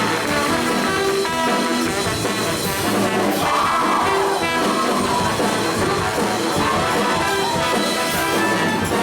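Instrumental break in an upbeat pop-style show tune, played by a band with brass prominent. A melody rises and falls over steady chords and a beat.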